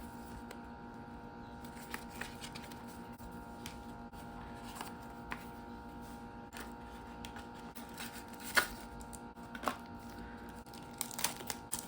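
Scattered light clicks and taps from handling a new mechanical keyboard and its packaging, the sharpest about two-thirds of the way through and a quick run of them near the end, over a faint steady hum.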